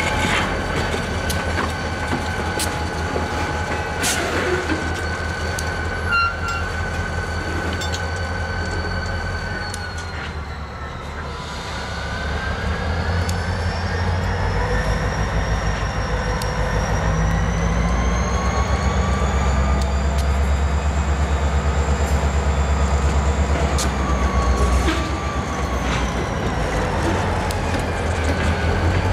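EMD SD40-2 diesel locomotives working at low speed while switching covered hopper cars. A low pulsing engine throb dips briefly and then grows louder as the engines load up. High wheel-flange squeal rises and falls over it, with a couple of sharp metallic clanks a few seconds in.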